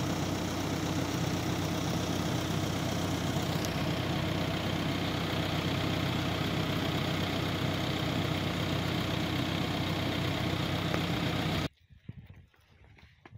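Diesel engine of a backhoe loader running steadily at idle, stopping abruptly near the end.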